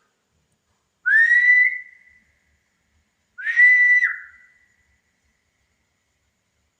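Two long whistled notes about two seconds apart. Each swoops up quickly to a steady high pitch and holds for about a second; the second ends with a quick drop in pitch.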